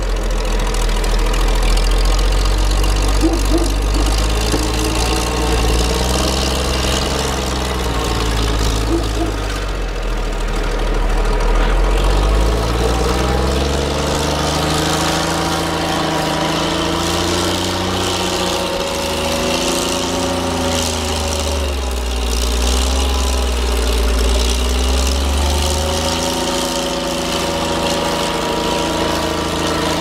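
Wheel loader's diesel engine working under load while clearing deep snow. It runs at a steady drone at first, then from about the middle on it revs up and down again and again as the machine pushes and manoeuvres.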